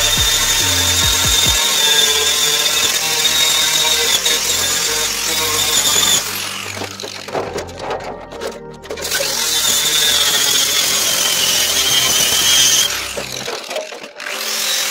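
Electric angle grinder grinding the rusted steel edge of a car fender's wheel arch, a steady high whine with grinding noise. It stops for a few seconds in the middle, resumes, and eases off briefly near the end.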